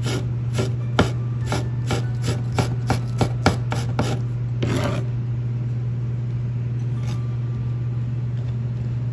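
Farberware chef's knife chopping tomato strips on a white cutting board: about a dozen quick knife taps in the first four seconds, then a brief scrape a little before the five-second mark. A steady low hum runs underneath.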